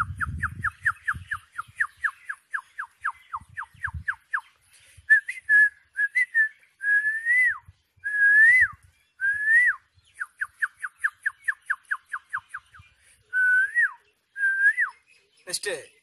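A man whistling an imitation of a sparrow's call: quick runs of short falling chirps, about five a second, alternating with longer held notes that rise slightly and then drop off sharply.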